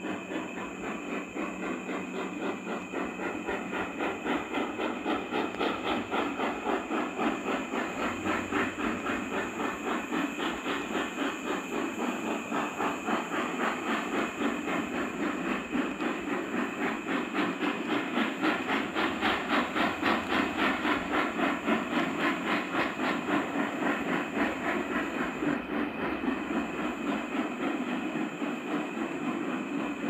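Steam locomotive exhaust beating hard and fast, with overlapping beats from two dissimilar engines working upgrade in a drum-like double rhythm, along with hiss of steam. The beats grow louder over the first twenty seconds or so.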